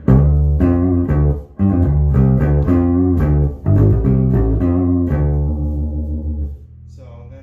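1976 Rickenbacker 3000 short-scale electric bass played through a tube bass head and 6x10 cabinet: a line of plucked notes, ending on a note that dies away near the end. The tone knob is at about 40–50%, the setting that gives this bass its trebly sound.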